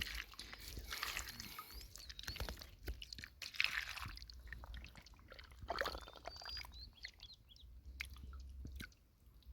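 Scattered clicks, crunches and swishes of hands rummaging through mud and shells in shallow lake water while picking snails and clams, with a few faint bird chirps.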